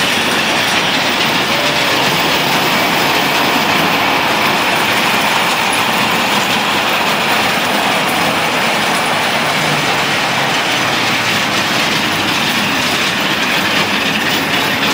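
A mini roller coaster train's wheels running along its steel track: a steady, unbroken rolling noise.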